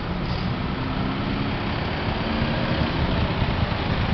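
Motor vehicle engine running amid a steady low rumble, with a faint hum that shifts in pitch now and then.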